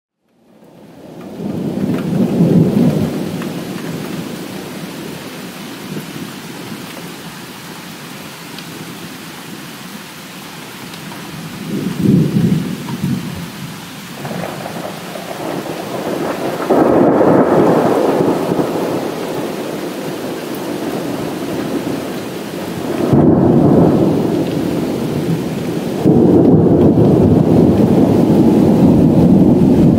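Thunder rolling over steady rain: several low rumbles, one a couple of seconds in, another near the middle, more later on, and a long sustained roll near the end.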